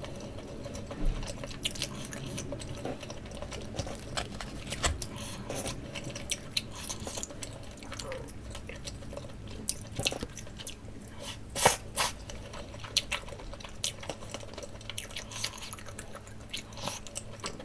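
Close-miked chewing and biting of takoyaki: soft, wet mouth sounds with many small scattered clicks, and one sharper click about twelve seconds in.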